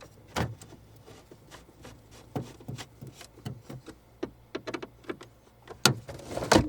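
A string of light, irregular clicks and knocks from hands handling small parts and tools, with a couple of louder knocks close together near the end.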